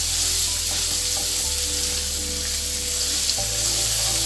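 Tomato paste and onions frying in groundnut oil in a frying pan, a steady sizzle, stirred with a plastic spoon.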